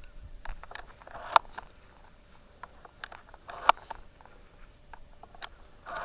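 Scattered rustling and a few sharp clicks close to the microphone, with the strongest about a second in, near the middle and at the end.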